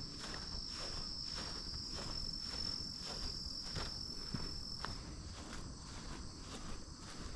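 Footsteps walking at an even pace, about two steps a second, under a steady high-pitched insect trill that carries on throughout.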